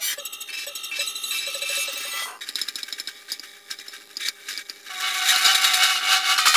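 Experimental soundtrack of clinking, rattling and clicking textures over a high hiss, with a few steady held tones; it swells louder about five seconds in.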